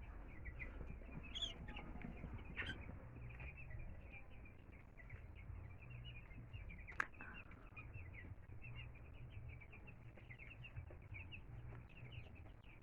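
A brood of two-week-old chicks peeping constantly, many overlapping short high chirps, faint. A single sharp click sounds about seven seconds in.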